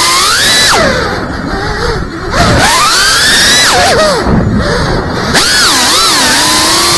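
FPV racing quadcopter's brushless motors and propellers whining, the pitch rising and falling with the throttle during freestyle flying. About a second in the whine eases off and drops in level, then surges back at about two and a half seconds.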